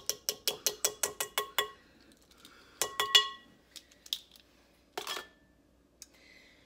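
A spoon rapped quickly against the rim of a bowl, about six taps a second, each tap leaving a short ringing tone, as mayonnaise is knocked off the spoon. The rapid tapping stops a little under two seconds in, then comes a short second run near the middle and a few lighter clicks.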